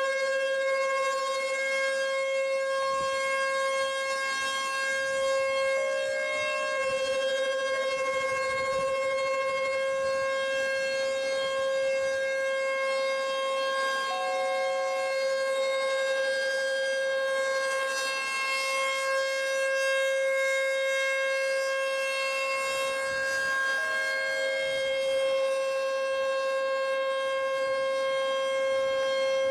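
American Signal T-128 outdoor warning siren sounding the Alert signal: a single steady tone that holds its pitch.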